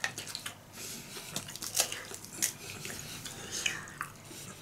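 Close-up eating sounds: takoyaki being chewed with irregular wet mouth clicks and smacks, mixed with light taps of a fork against the food tray.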